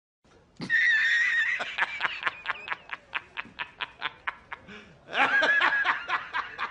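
A man's loud, hysterical laughter: a high cackle, then a rapid run of 'ha-ha' pulses about five a second, then a second loud burst of laughter about five seconds in.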